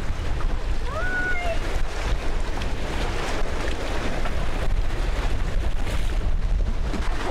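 Steady wind buffeting the microphone and water rushing along the bow of a sailing catamaran under way, with a brief rising high-pitched call about a second in.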